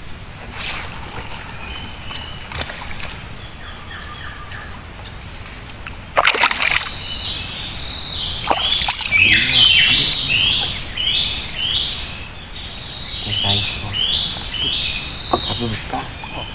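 A bird calling over and over in quick downward-sweeping notes, starting about seven seconds in, over a steady high-pitched whine. There is a single splash in the water about six seconds in.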